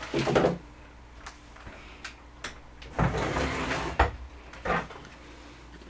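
Gear being handled: a few light knocks and clicks as items are set down and picked up, with a longer rustle of packaging about three seconds in.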